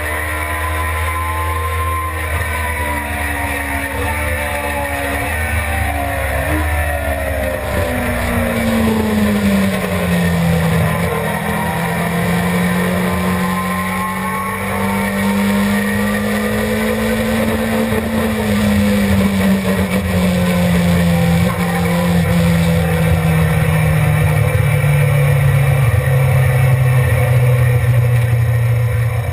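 Suzuki GSX-R600's inline-four engine heard from a camera mounted on the bike. Its pitch falls over the first ten seconds, rises a little, then sinks steadily as the bike slows, over a constant rushing noise.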